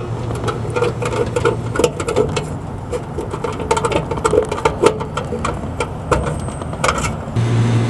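Rapid irregular clicking and rattling of wires and metal terminals being handled inside an air conditioner's electrical compartment, as capacitor leads are worked on by hand. A steady low hum sits underneath at the start and again near the end.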